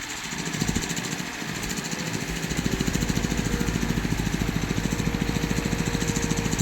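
Heavy-equipment diesel engine running with a fast, even pulsing, picking up and settling into a stronger steady note about two and a half seconds in.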